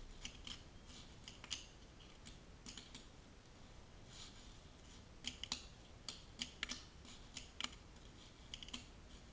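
Fingerboard clicking and tapping on concrete: the small deck's tail and wheels knocking against the surface as tricks are tried, a scatter of light clicks, some in quick pairs.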